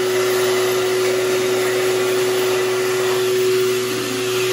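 Hand dryer built into an all-in-one washbar faucet blowing steadily: a rush of air with a steady motor whine.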